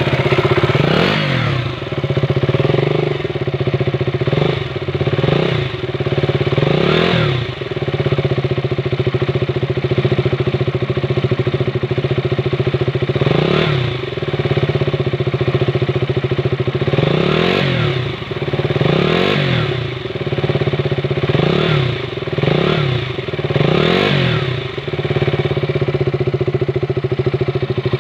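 KTM Duke 200's single-cylinder four-stroke engine idling at the exhaust outlet, with about a dozen short throttle blips in clusters, each revving up and falling straight back to idle.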